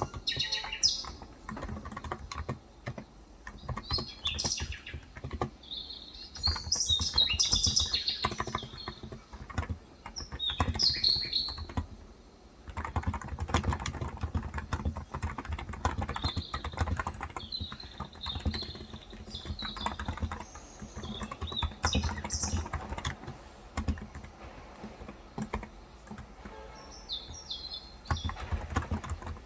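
Typing on a Cox Endeavor electro-capacitive keyboard with light 35g switches, a steady run of keystrokes with short pauses. Birds chirp outside in several short bursts over the typing.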